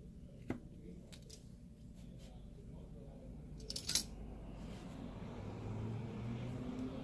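Light clicks and taps of small repair tools against an iPad's glass and frame while it is being pried open, with a quick cluster of sharp clicks about four seconds in.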